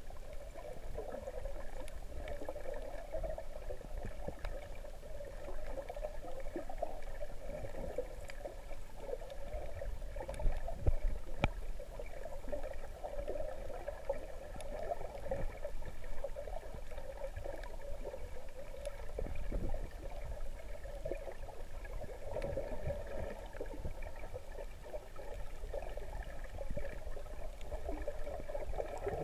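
Muffled underwater ambience picked up by a camera in a waterproof housing: water moving and sloshing with a low rumble and a faint steady hum. A few knocks come about eleven seconds in.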